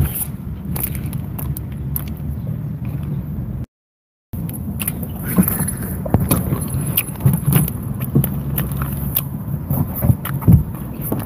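Biting and chewing a chocolate bar, with crackles of its plastic wrapper, over a steady low car-cabin hum. The sound cuts out completely for about half a second around four seconds in.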